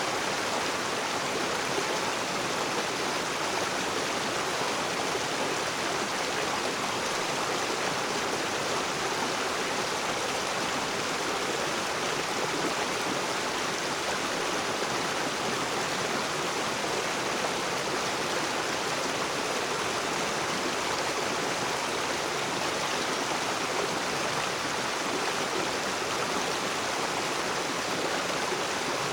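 Water rushing steadily over the rocks of a river, an even wash of sound with no breaks.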